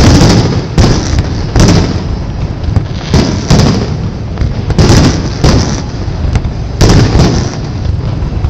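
Aerial firework shells bursting overhead: an uneven series of loud bangs, more than one a second, each trailing off in a low rumbling echo.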